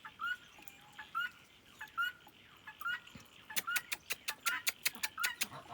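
Domestic fowl calling with repeated short, rising calls. From about halfway there is a quick run of sharp clicks.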